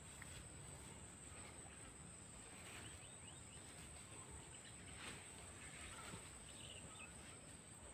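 Quiet outdoor ambience: a steady high-pitched insect drone, with a few faint rustles of goats browsing through dry grass.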